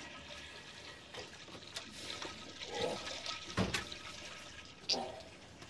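A man's long fart, spluttering in several separate bursts over a steady hiss.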